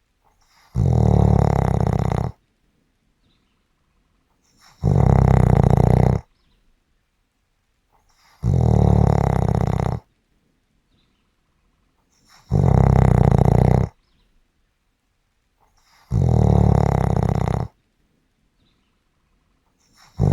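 Snoring: one long snore about every four seconds, each lasting about a second and a half, with near silence between them. Five snores in all, with a sixth beginning at the very end.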